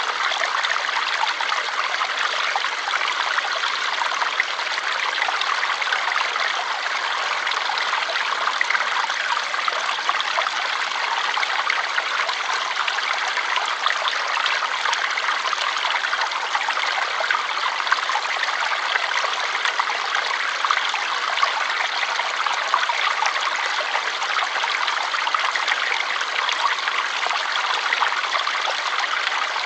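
A stream of water flowing steadily, an even rushing splash with no pauses.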